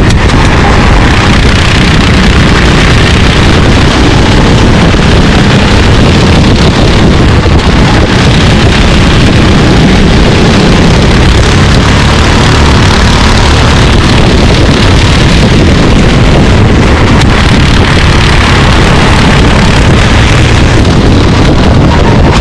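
Racing kart engines running at speed during a race, with steady wind noise on the microphone.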